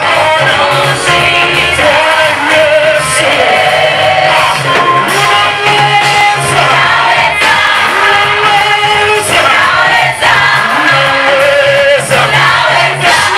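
A vocal group singing a gospel praise song with band accompaniment, with a steady bass line under the voices.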